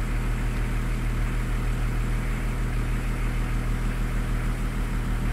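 Range Rover P38 engine idling steadily.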